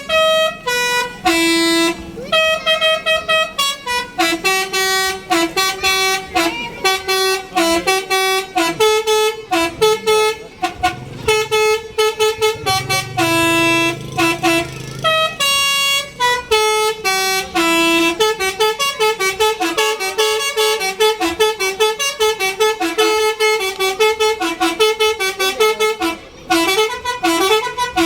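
Bus 'telolet' basuri musical horn playing a melody of stepped, pitched notes, with the notes coming faster and shorter in the second half.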